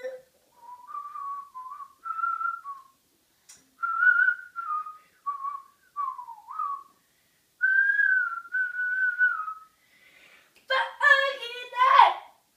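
A child whistling a tune in short phrases, the pitch gliding up and down between notes. Near the end a child's voice sings briefly and louder.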